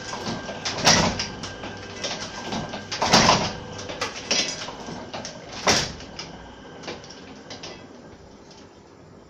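A 50-year-old platen letterpress machine running, a loud clack about every two and a half seconds as the platen closes on the sheet, with lighter clicks and rattles between strokes. The clatter dies away over the last few seconds.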